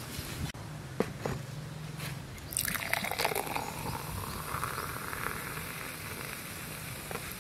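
A foaming dark drink poured into a glass, starting about two and a half seconds in: a gushing pour whose pitch falls and then rises as the glass fills. A couple of sharp clicks come about a second in.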